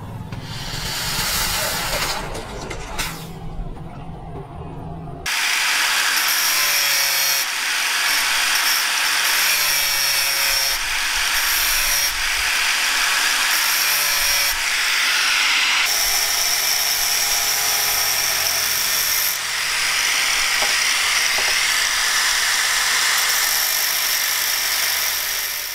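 Angle grinder with a thin abrasive cutting disc cutting into galvanized steel pipe: a loud, steady, high-pitched grinding whine that starts suddenly about five seconds in, with several brief breaks between cuts.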